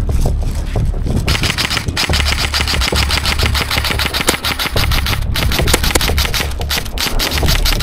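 Airsoft electric gun firing long full-auto bursts: a rapid, even clatter of shots that starts about a second in, with brief pauses where the trigger is let go about two and five seconds in.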